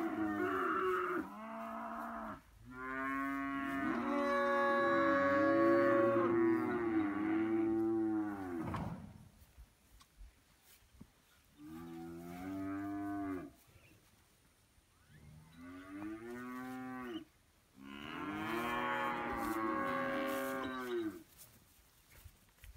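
Cattle mooing: about five long, drawn-out calls with quiet gaps between them, their pitch rising and falling within each call.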